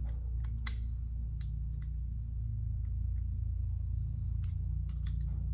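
Scattered light clicks and ticks of an air-hose chuck and fittings being handled, over a steady low hum.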